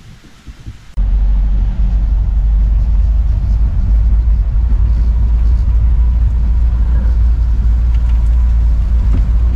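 Loud, steady low rumble of a vehicle on the move, starting abruptly about a second in.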